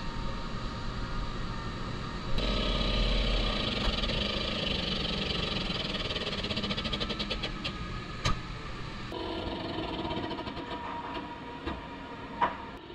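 Pneumatic rivet gun running as it sets rivets through an aluminum truck bedside panel. It makes a steady mechanical buzz that grows louder a couple of seconds in, with a fast rattle partway through and sharp snaps about eight seconds in and again near the end.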